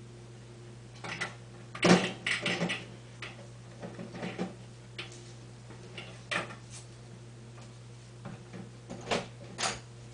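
Scattered knocks and clunks, like doors or cupboards handled off-camera: about a dozen short, irregular thuds and clicks, the loudest about two seconds in, over a steady low electrical hum.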